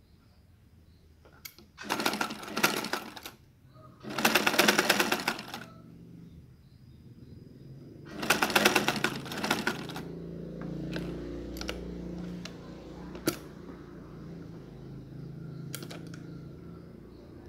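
Domestic sewing machine stitching in three short bursts, its needle mechanism clattering rapidly. After about ten seconds a quieter, lower running sound follows, with a few sharp clicks.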